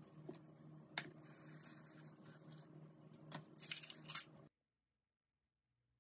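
Faint handling sounds of soy wax flakes and a plastic cup: light rustling and a few small clicks as the flakes are tipped into a steel pot, the sharpest click about a second in. The sound cuts off abruptly about four and a half seconds in.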